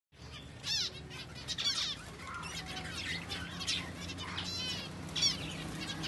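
Zebra finches in an aviary calling: many short, repeated chirps from several birds, overlapping one another, over a steady low hum.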